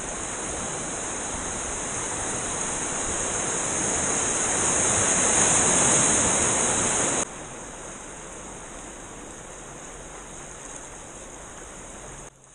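Rushing whitewater of a river rapid, a steady roar building louder for about seven seconds, then cutting off abruptly to a quieter, steady rush of moving water.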